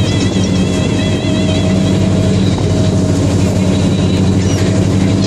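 Charter boat's engine running steadily under way, a continuous low drone. A thin wavering high tone rides over it for the first two seconds or so.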